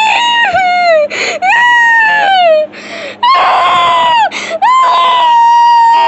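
A high-pitched human voice wailing and crying in long drawn-out cries, each falling off at its end, with short sharp gasps between them.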